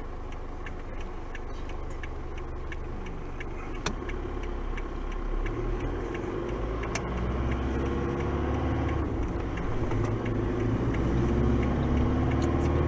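Car engine and road noise heard from inside the cabin, growing louder and rising in pitch as the car gathers speed, with a regular ticking about twice a second, clearest in the first half.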